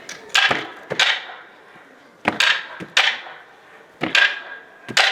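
Sharp wooden clacks struck in quick clusters, three times: kabuki tsuke clappers beaten on a board to punctuate a stage sword fight.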